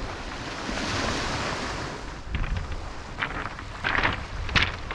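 Waves washing on a shingle beach with wind buffeting the microphone. From about two seconds in, irregular crunching footsteps on the pebbles.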